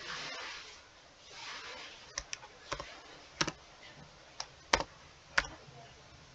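Computer keyboard typing: single keys pressed one at a time, about seven separate sharp clicks spaced unevenly over the last four seconds.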